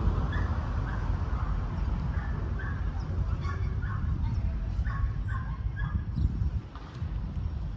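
Short, irregular animal calls over a steady low rumble.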